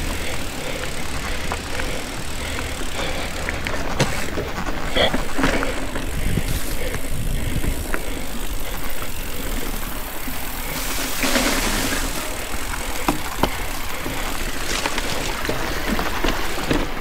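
Ibis Ripley full-suspension mountain bike ridden on a dirt trail: a steady rolling noise from the tyres and bike, with several sharp knocks from bumps.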